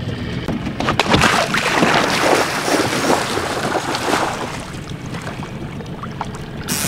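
A person wading quickly through shallow river water, feet splashing, for about three and a half seconds starting a second in, then quieter steps in the water.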